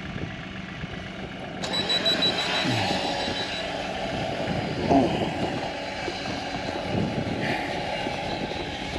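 Farm tractor engine running at idle in neutral, a steady hum, with louder noise coming in about a second and a half in and a few short falling squeaks over it.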